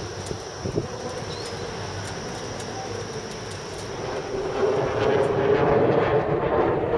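Outdoor background noise with a steady engine drone that grows louder about five seconds in.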